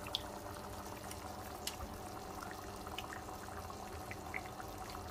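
Bolognese sauce simmering in a frying pan: faint bubbling with a few small scattered pops over a steady hum.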